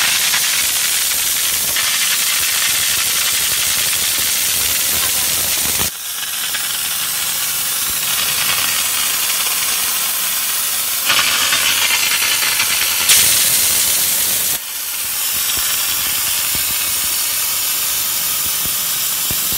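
Trigger steam gun of a 12-bar LPG-fired steam car washer blasting a continuous jet of steam, a loud steady hiss, while the steam is turned from its wettest to its driest setting. The hiss dips briefly about six seconds in and again near fifteen seconds, and shifts in tone in between.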